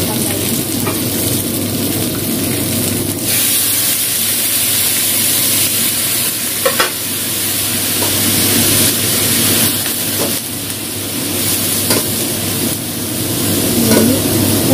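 Whole fish and ginger slices frying in hot oil in a wok, sizzling steadily. The sizzle gets brighter and louder about three seconds in, and there is a short knock about seven seconds in.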